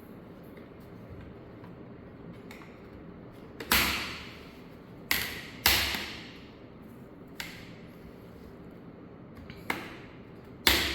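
Sharp clicks and knocks of parts being handled while an SSD is fitted into an HP all-in-one computer, each with a short ringing tail. There are four loud strikes, a pair close together in the middle and one near the end, with a couple of fainter taps between.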